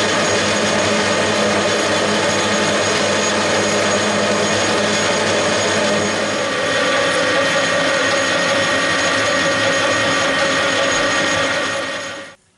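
Metal lathe running steadily, its four-jaw chuck spinning as a metal part is turned: a steady machine drone with a gear whine. It winds down and stops just before the end.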